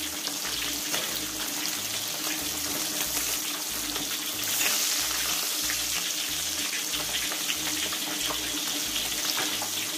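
Hot oil sizzling steadily around a whole giant gourami deep-frying in a wok, as the spatula ladles oil over the part of the fish that sits above it. The hiss swells briefly about five seconds in.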